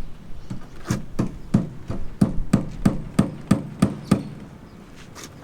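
A hammer striking repeatedly in a steady rhythm, about three blows a second, a run of around ten blows that stops about four seconds in.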